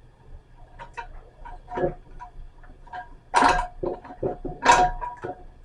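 Old kitchen faucet being worked loose and lifted off the sink: a run of light knocks and clicks, with two louder scraping clunks about three and a half and nearly five seconds in.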